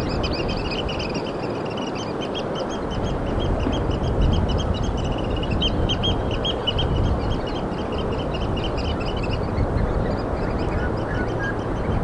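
Rapid high-pitched chattering calls, many short notes a second, over a steady noise. The calls stop about nine and a half seconds in.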